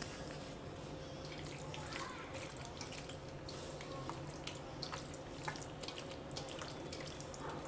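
Hand squishing and turning chicken pieces in a thick yogurt tandoori marinade in a steel bowl: faint wet squelches and small clicks over a steady low hum.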